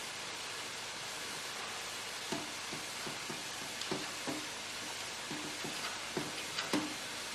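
Brass draw-off tap on a large metal cooking kettle being handled and worked, giving a string of irregular metallic clinks and knocks from about two seconds in, over a steady hiss.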